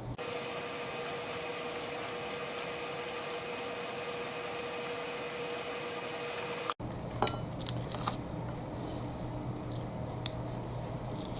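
Light clicks and rustles of a light bulb wrapped in masking tape being turned into a sewing machine's lamp socket, a few sharp clicks in the second half, over a steady hiss with a faint steady tone.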